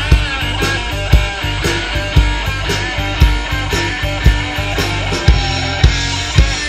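Live rock band playing through a PA: electric guitar, bass guitar and a drum kit, with a steady beat of about two drum hits a second.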